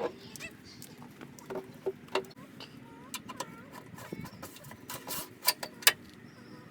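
Scattered clicks and knocks of car parts and tools being handled during a headlight swap, the loudest a cluster of sharp knocks near the end, with birds chirping in the background.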